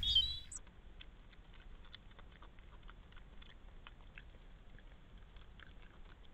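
Faint scattered rustles and small ticks of a badger moving and snuffling through leaf litter, picked up by a trail camera's thin-sounding microphone. A brief bird chirp is heard at the very start as the outdoor sound fades out.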